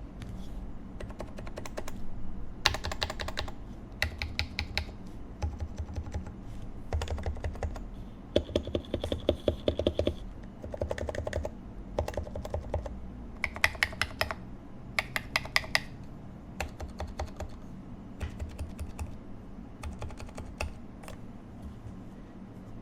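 Typing on a Leopold FC660C Topre keyboard (55 g electrostatic capacitive rubber-dome switches with lubed Novatouch sliders, Silence-X rings and GMK keycaps) in a Norbauer Heavy-6 case. Keystrokes come in quick runs with short pauses between them, growing sparser near the end.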